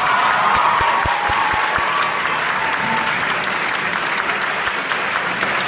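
Audience applauding steadily: a dense, continuous clatter of many hands clapping.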